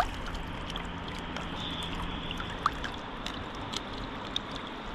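Steady rush and trickle of a shallow river's current around the angler's hand and a landing net, with a few faint small ticks.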